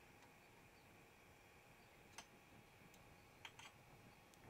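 Near silence broken by a few faint clicks in the second half, two of them close together. They come from small metal parts being handled as a screw is fitted into the 3D printer's probe mount on the carriage.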